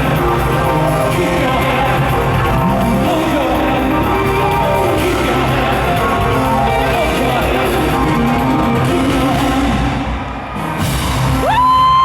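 Live pop concert heard from the audience in a large hall: the band playing and a male singer singing. Near the end a nearby fan lets out one loud, high, held scream, louder than the music.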